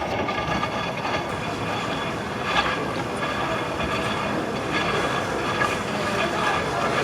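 Washing machine running: a steady mechanical noise with faint steady tones riding over it.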